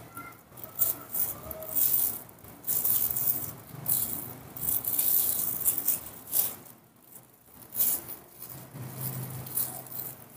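Irregular scratchy rustling in short strokes: a knife peeling papaya skin, with a plastic bag crinkling as a baby monkey moves over it.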